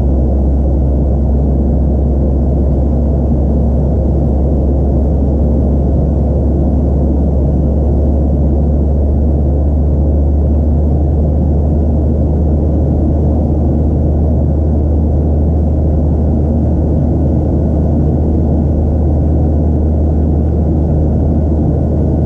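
Steady cabin roar of a Boeing 737-700 in its climb, heard from a window seat just ahead of its CFM56-7B engine: a deep, even rumble of engine and airflow noise with a faint steady whine above it.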